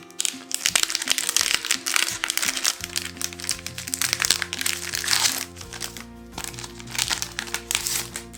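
Packaging crinkling and crackling as it is handled and opened, in dense runs with a short lull a little past the middle, over background music.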